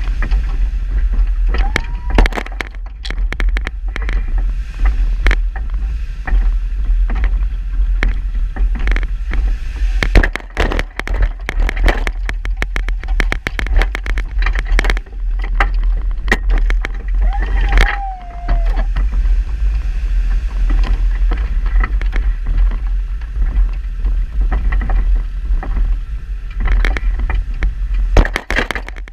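Vehicle pushing a red snow plow blade through snow: a steady low engine rumble with frequent clanks and knocks from the plow's lift chain and frame. A brief whine comes twice, near the start and a little past the middle.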